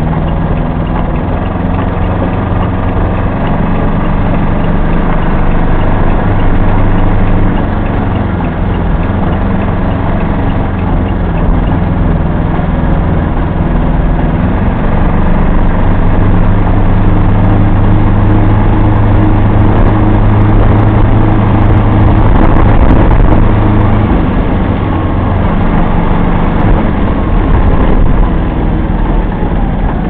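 Aixam Mega Multitruck van's small Kubota diesel engine running steadily while driving, heard from inside the cab. It grows louder in the middle and eases off near the end, with tyre noise from a wet road underneath.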